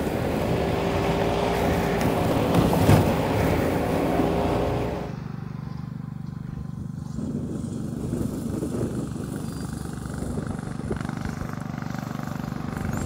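A vehicle driving on an unpaved road: engine and rough road noise with rattling inside the cabin. About five seconds in it cuts abruptly to a quieter, steady low hum.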